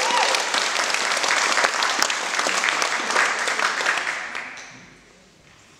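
An audience clapping, thinning and fading out about four seconds in, with a brief wavering cry at the start.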